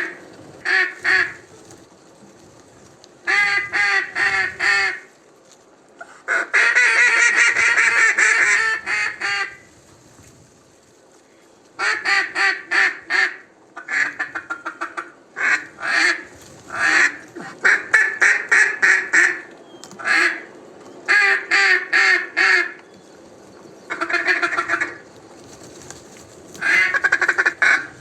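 Mallard duck call blown in repeated strings of loud quacks, several quacks to a string with short pauses between. About six seconds in comes a longer run of fast chatter.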